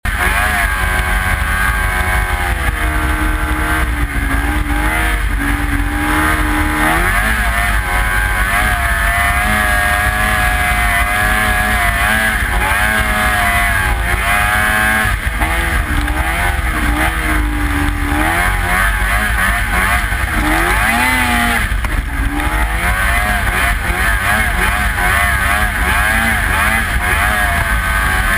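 Snowmobile engine running under load, its pitch rising and falling again and again as the throttle opens and closes, over a steady rush of track and wind noise.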